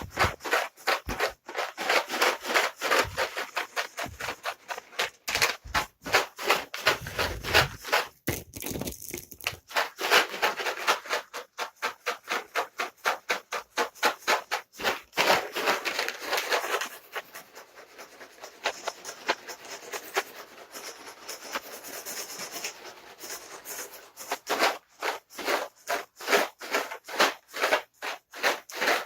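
Cat treats rattling in their container as it is shaken, at about three shakes a second, with a softer stretch of gentler shaking past the middle.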